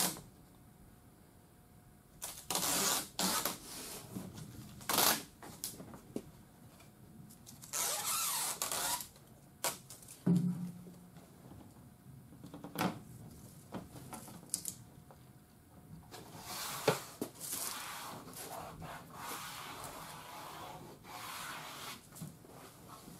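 Automotive masking tape being peeled off a car's paint and a plastic rear window louver, in several pulls of one to a few seconds each, the longest near the end. A brief low thump about ten seconds in.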